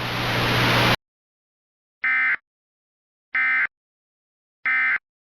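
A hiss of static swelling louder and cutting off sharply about a second in, then three short, identical bursts of EAS digital data tones about 1.3 s apart: the End of Message code that closes an Emergency Alert System activation.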